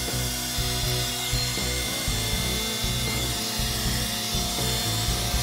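Electric heat gun running steadily, its fan blowing hot air onto a spliced ABS sensor wire to shrink the sleeving over the joint. Background music with a beat plays underneath.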